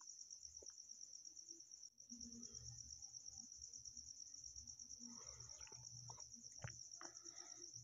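Near silence: room tone with a faint, steady, high-pitched pulsing trill throughout, and a few faint indistinct sounds and clicks about five to seven seconds in.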